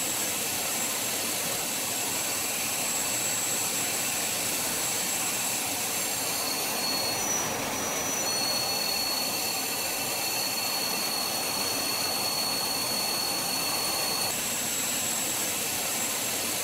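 Jet aircraft engine noise: a steady, even rush with thin, high whining tones that shift pitch a few times.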